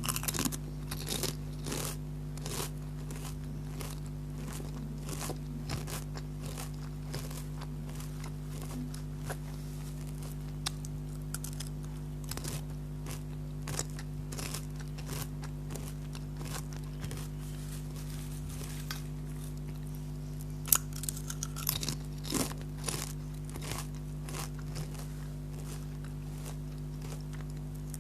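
Lay's potato chips being bitten and chewed close to the microphone, a string of irregular crisp crunches. There is a loudest bite about three quarters of the way through, followed by a quick run of crunches.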